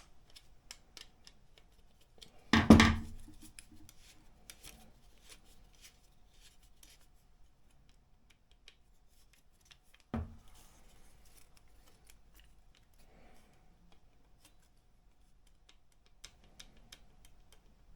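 Faint metallic clicks and rattles from the router's parallel guide being handled; this guide has considerable play. A loud clunk comes about two and a half seconds in and a lighter knock about ten seconds in.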